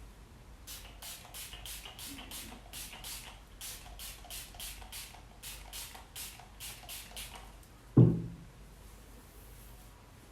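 Background music: a rhythmic track of short, crisp, shaker-like ticks about three a second, then a single loud deep boom that falls in pitch about eight seconds in.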